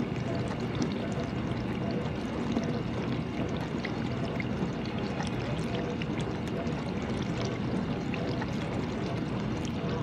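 GE dishwasher running its wash cycle: a steady rush of water spraying and sloshing inside the tub, over a faint low hum.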